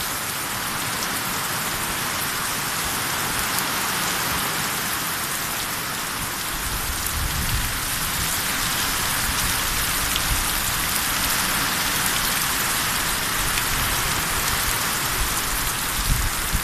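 Heavy rain pouring down in a steady hiss over a flooded yard, with a low rumble joining about six seconds in.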